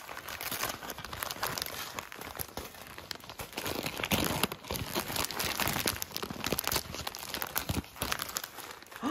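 Printed wrapping paper round a small package crinkling and crackling as hands squeeze and crumple it, in a dense run of crackles throughout.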